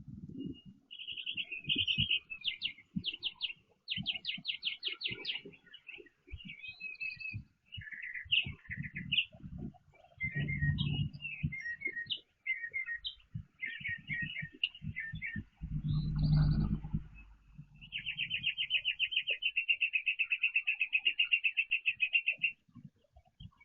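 Songbirds chirping and trilling in short bursts, ending in one long, even trill of about four seconds. Low thumps and knocks sound underneath, loudest about ten and sixteen seconds in.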